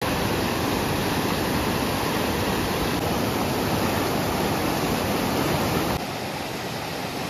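Rushing water of a rocky river's white-water rapids, a steady dense rush; about six seconds in it steps down abruptly to a quieter, softer rush.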